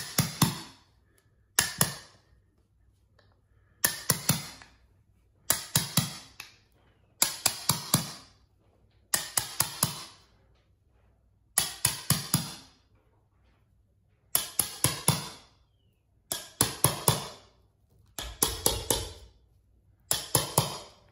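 Hammer striking the metal blade of a carpet stair tool to tuck the carpet edge into the carpet-to-tile transition. The strikes come in quick bursts of three to five, repeated about every two seconds.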